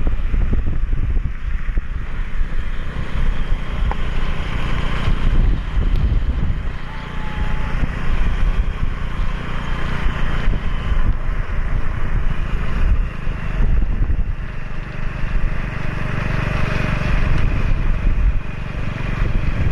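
Engine of a vehicle running steadily on the move, mixed with heavy wind rumble on the microphone.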